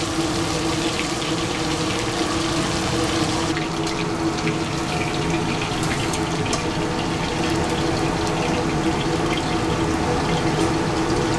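Giant eel steaks frying in hot oil in a wok: a steady sizzle over a low hum, with light clicks of metal tongs against the wok and the perforated strainer.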